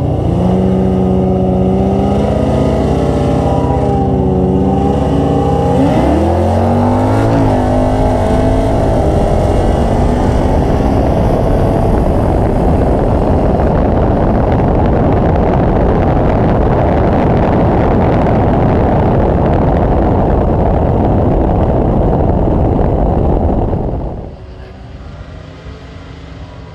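V8 car engine on a drag strip: it runs at low, wavering revs for about six seconds, then goes to full throttle in a hard launch. It stays at full power for about eighteen seconds and drops away suddenly near the end.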